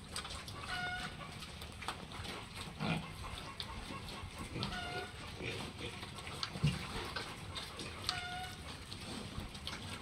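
Pigs grunting and snuffling as they root along a concrete pen floor, with scattered clicks. A short, clear call repeats three times, about every three and a half seconds.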